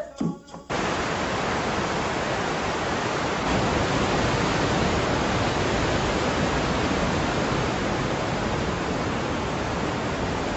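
Steady rushing roar of a tall waterfall in heavy flow, starting abruptly just under a second in as a brief bit of singing cuts off.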